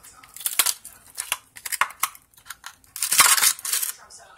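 Orange plastic ice cube tray being twisted and handled, with sharp clicks and cracks as the ice cubes break loose, and a crackle lasting nearly a second about three seconds in.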